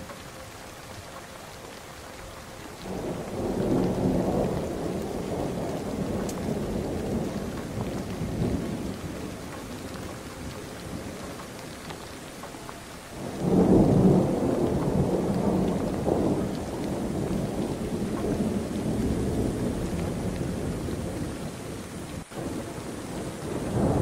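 Strong wind gusting through oil palm fronds and rumbling on the microphone. It swells in two long gusts, one starting about three seconds in and one about thirteen seconds in.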